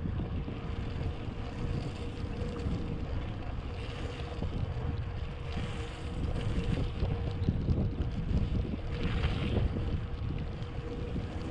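Wind buffeting the microphone on a moving bicycle, with the hiss of tyres on a rain-wet road that swells a few times.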